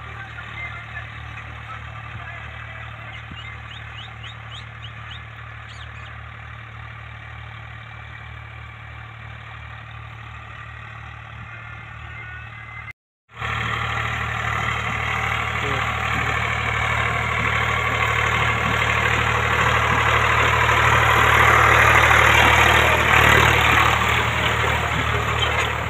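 Diesel tractor engine running steadily under load while pulling a disc harrow through field soil; distant at first, then much louder and closer after a sudden cut about halfway through.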